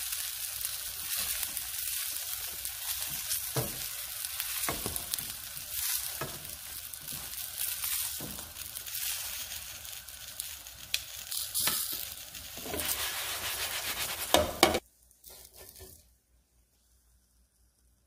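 Stuffed eggplant slices sizzling as they fry in oil in a wok, with a few sharp knocks of a utensil against the pan as the pieces are turned. The sizzle stops abruptly near the end, leaving near silence.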